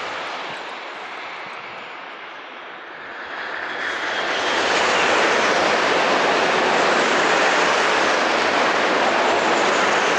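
Renfe AVE high-speed trains crossing, class 100 and class 112. The rush of one train fades over the first few seconds. Then the next passes close at speed from about four seconds in, a loud steady rushing of wheels and air.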